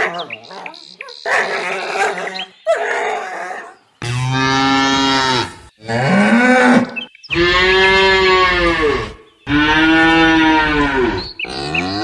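A cow mooing: from about four seconds in, a run of five long moos, one after another with short breaths between, the last still going at the end.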